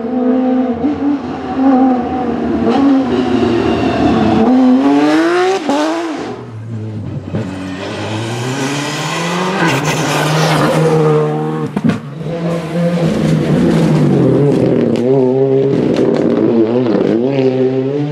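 Rally car engines revving hard as the cars accelerate through the gears on a tarmac stage, the pitch climbing in repeated sweeps, with one car passing close about ten seconds in.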